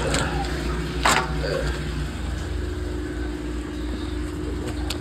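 Steady machine hum of an engine or motor running, with a sharp knock about a second in and a lighter click near the end.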